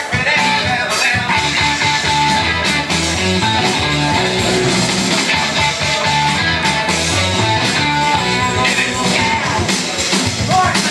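Music: a rock-and-roll-style song with singing.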